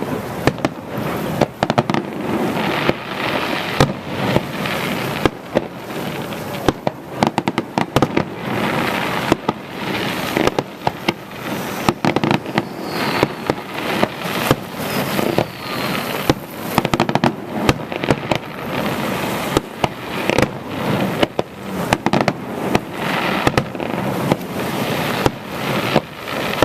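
Aerial fireworks display: shells bursting one after another, many sharp bangs and crackles, with dense clusters of rapid pops several times.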